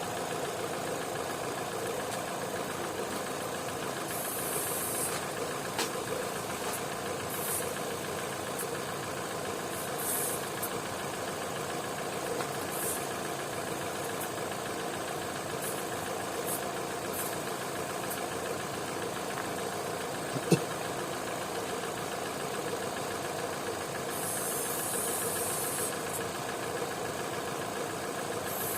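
Opel/Vauxhall petrol engine idling steadily while flammable spray is squirted in short hisses around the throttle body and vacuum connections, with a longer hiss near the end. The idle does not rise at any point, a sign of no vacuum leak at the sprayed spots. A single sharp click about two-thirds of the way through.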